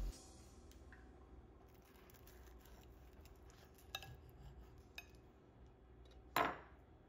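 A fork cutting into crispy breadcrumb-crusted baked eggplant on a plate: a few light clicks of the fork, then one short, louder crunch as it goes through the crust about six seconds in.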